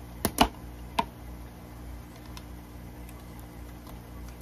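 A folding knife working at a thick plastic fish-shipping bag in a plastic bucket: a few sharp clicks and ticks in the first second, then only faint handling sounds. The bag is double-bagged and hard to cut into.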